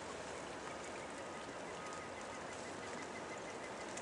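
Steady rush of the Merced River flowing, with a faint thin high tone in the middle.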